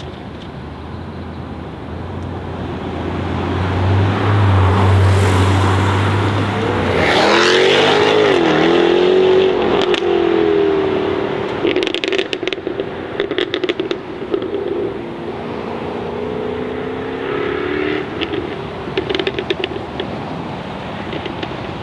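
Jaguar F-Type V8 R's supercharged 5.0-litre V8 building from a low drone into hard acceleration. Its engine note dips once and climbs again, then holds at fairly steady revs, with two short bursts of exhaust crackles and pops.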